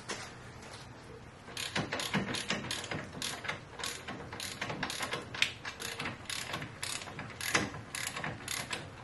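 Hand socket ratchet clicking in quick runs as it spins out the loosened front brake caliper bolts, starting about a second and a half in.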